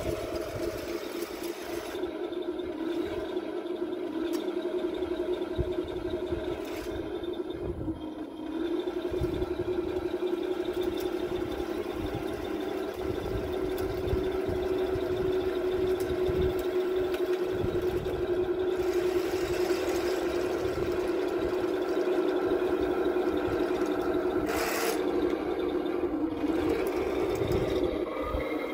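Henglong King Tiger RC model tank driving on concrete: a steady mechanical drone from its drive and sound unit, dipping briefly about eight seconds in. A short sharp noise comes about twenty-five seconds in.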